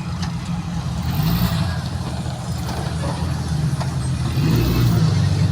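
Off-road 4x4's engine running steadily at low revs close by, its note swelling slightly about a second in and again near the end.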